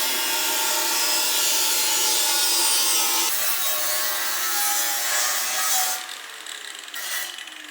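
Power grinder working sheet metal, a harsh steady grinding for about six seconds. It is then let off and spins down, its whine falling in pitch.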